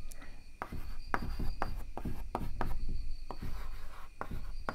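Chalk writing on a blackboard: a quick, irregular series of sharp taps with scraping in between as letters and equals signs are written.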